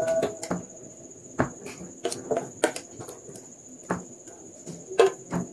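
Chopsticks clicking and knocking against a stainless-steel pot and a bowl as noodles and greens are lifted across, about eight irregular light clicks. A steady high-pitched tone runs behind them.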